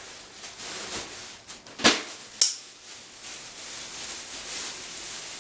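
Rustling of packaging being handled and unwrapped, with two sharp knocks about two seconds in, a little over half a second apart.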